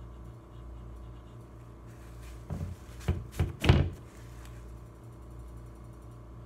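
Paper towel wiped and rubbed over the engraved face of an AR-15 lower receiver on a table, four quick scuffing knocks in about a second and a half, the last the loudest, over a steady low hum.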